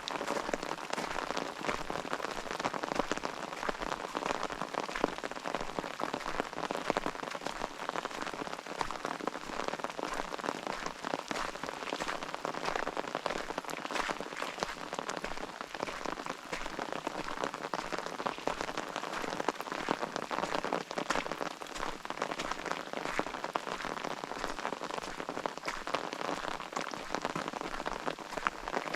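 Steady rain: a dense patter of individual drops over a continuous hiss.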